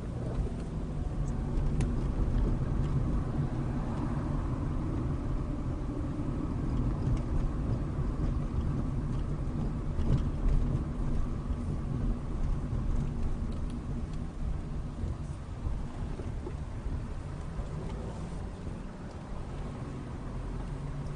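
Car engine and tyre noise heard from inside the cabin while driving at low speed: a steady low rumble with a few faint clicks, easing off near the end as the car slows.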